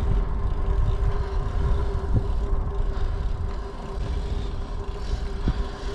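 Wind and road rumble on a GoPro riding along on a mountain bike on asphalt, with a steady faint hum underneath and two light clicks.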